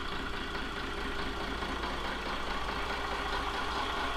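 Boat's inboard engine idling steadily, heard through the open engine hatch: an even, unbroken hum.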